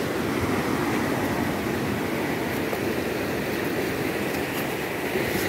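Steady rushing noise of sea surf breaking on a sandy shore.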